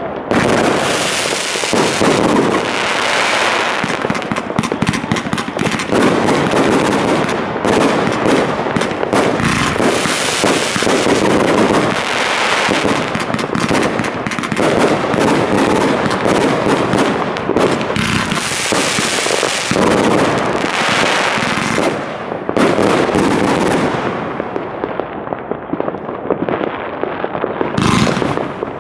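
Consumer firework cakes firing in quick succession: a dense, continuous barrage of shots and bursts. The barrage eases for a few seconds near the end, then more shots follow.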